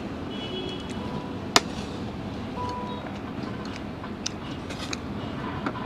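Steady road traffic noise, with light clinks of eating utensils and one sharp click about one and a half seconds in.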